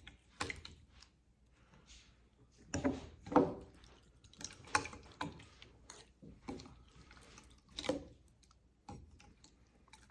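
Slime squelching and dripping as it is poured and worked by hand: a string of short, irregular wet squishes.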